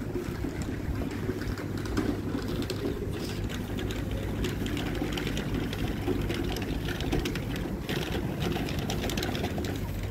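Street ambience: a steady low mechanical hum with many small clicks and taps over it.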